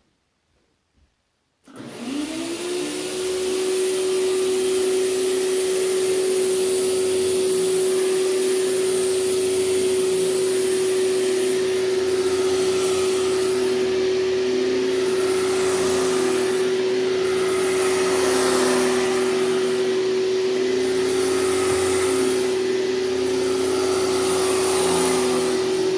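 2003 Hoover TurboPower 5000 canister vacuum switched on about two seconds in: the motor spins up quickly to a steady high whine and keeps running at full speed.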